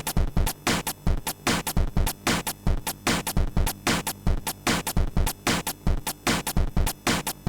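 Electronic noise music: a fast, uneven run of sharp percussive hits, roughly four to five a second, over a faint low drone.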